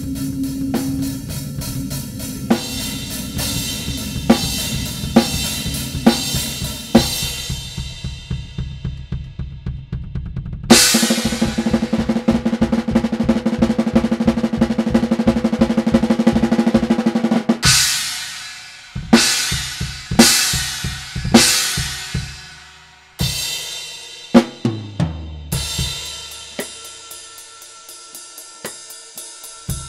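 Drum-kit music score: a steady beat of drum hits, then a loud cymbal crash about eleven seconds in that opens a fast drum roll lasting about six seconds. Several single crash hits follow, each one ringing out, and fast light hi-hat ticks come near the end.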